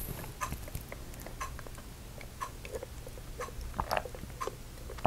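Quiet chewing: irregular small crunches and clicks of someone eating a crunchy snack.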